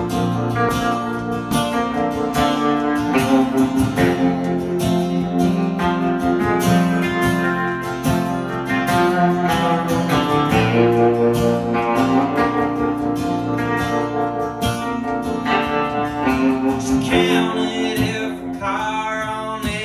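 A strummed acoustic guitar and an electric guitar playing a song together live; a man's voice starts singing near the end.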